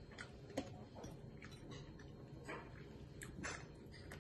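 Scattered crisp crackles and clicks from KFC fried chicken's crunchy breaded coating as it is torn apart by hand, about nine of them, irregular.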